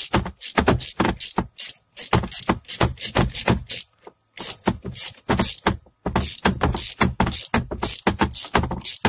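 Ratchet wrench clicking in quick runs, stroke after stroke, as it turns the nut off the top stud of a rear sway bar link. The runs are broken by brief pauses about every two seconds.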